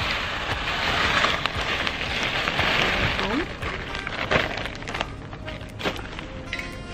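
Black garden soil poured from a plastic sack into a plastic pot of coco peat: a steady rustling hiss of falling soil for about three seconds, then a few scattered taps and rustles as the last of it drops and settles.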